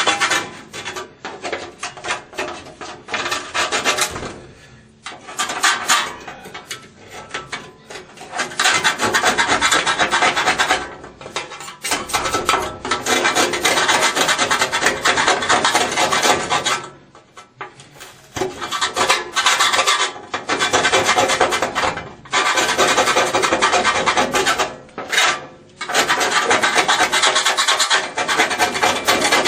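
Rust being scraped off the steel top of an old Whirlpool washing machine: rapid rasping strokes of a hand tool on metal, in runs of several seconds broken by short pauses.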